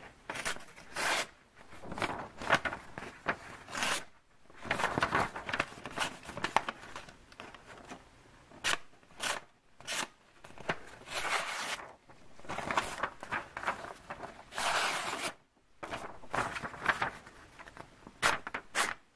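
A Kershaw Skyline 1760's freshly stropped blade slicing through paper, a run of short slicing strokes with brief gaps between them: a sharpness test.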